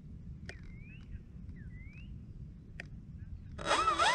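Wind rumbling on the microphone, with two faint clicks and two short rising chirps. About three and a half seconds in, the electric motor and propeller of an E-flite Air Tractor 1.5 m RC plane spin up suddenly, making a loud whine that wavers and rises with the throttle as the plane starts to taxi.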